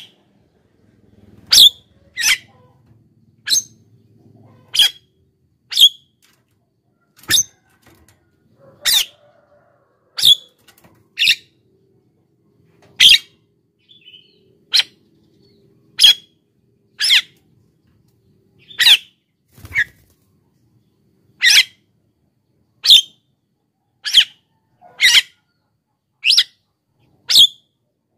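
Javan myna (jalak kebo) giving short, sharp calls repeated about once a second, with brief quiet gaps between them.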